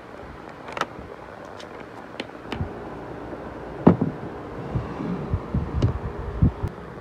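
Pens and highlighters clicking against white plastic organiser trays in a desk drawer, followed by a run of low thumps and knocks from about four seconds in, the loudest near the start of that run.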